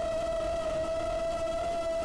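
Dubbed-in drone sound effect: a steady multirotor propeller whine, one held tone with overtones, wavering slightly in pitch.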